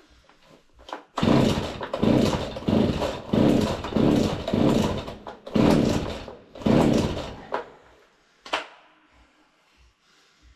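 Husqvarna 40 two-stroke chainsaw being pull-started: about nine quick starter-rope pulls in a row, each turning the engine over, over some six seconds. The engine does not catch and keep running. A single sharp click follows.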